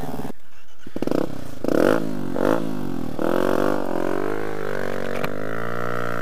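Dirt bike engine revving in a few short blips, then running with the revs rising and falling as it is ridden down a snow patch.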